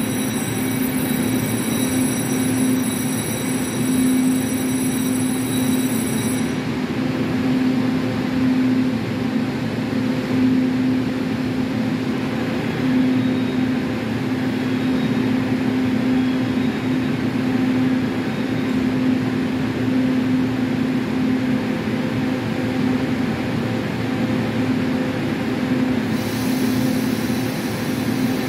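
Chu-Kuang express passenger train standing at the platform, giving a steady hum with a constant low drone. A thin high-pitched whine sounds over the first six seconds, and a high hiss comes in near the end.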